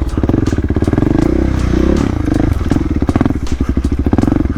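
Supermoto motorcycle engine running at low revs with rapid, even firing pulses. The revs dip and pick up again about two seconds in, as the bike works through a deep hole in a rutted trail.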